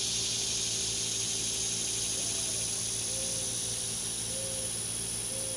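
Chorus of cicadas: a continuous high-pitched buzzing hiss that slowly fades, with a thin steady high whine above it.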